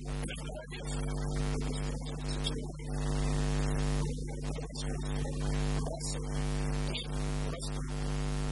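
Steady electrical mains hum with a man talking over it.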